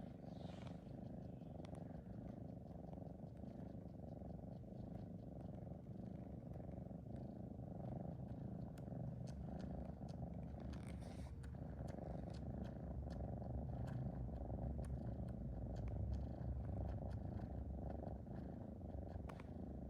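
A sleeping pet's steady, low rumbling breathing, the 打呼噜 of a snore or purr, growing a little stronger about halfway through. Faint scattered clicks come from its mouth chewing at a carpet.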